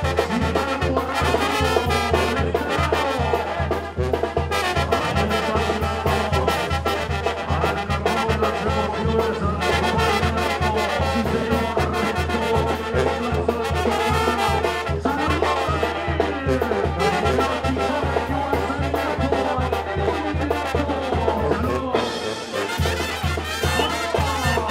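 Mexican banda music: trumpets and trombones playing over a steady, fast beat in the low end. The low beat drops out briefly near the end.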